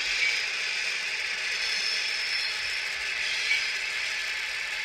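H0-scale model freight train of hopper wagons running along the track, its wheels and running gear rattling steadily, with one brief click about three and a half seconds in.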